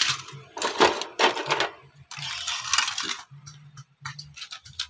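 Scrap circuit boards clattering as they are tipped out of a plastic scale tray, in a few rattling spills, then light clicks near the end.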